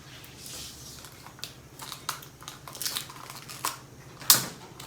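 Plastic toy packaging being handled and opened: scattered crinkles and light clicks, with one sharp click a little past four seconds in.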